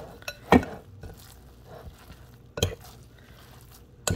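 Hand kneading and pressing seitan sausage dough in a ceramic bowl, working in whole wheat flour to break up the gluten fibres. Three sharp knocks, a second and a half to two seconds apart, stand out over a soft rustle of dough.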